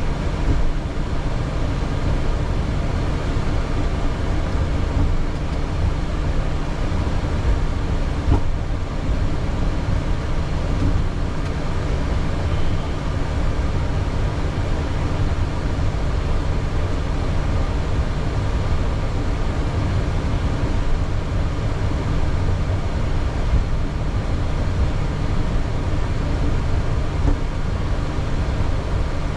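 Steady cabin noise in a Boeing 737 cockpit during taxi: a low rumble with a constant hum from the running engines and systems.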